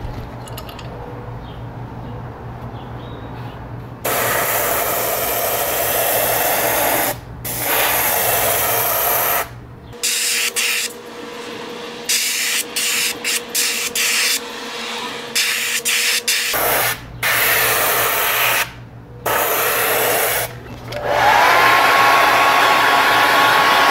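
Airbrush spraying paint in bursts of hissing air, some long and some quick short ones, over a low steady hum. Near the end a hair dryer is switched on, its whine rising and then holding steady as it blows on the wet paint.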